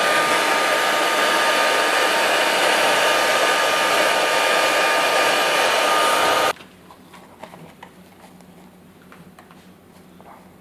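Handheld hair dryer running steadily, a loud blowing noise with a faint steady whine, switched off abruptly about six and a half seconds in. Faint handling sounds follow.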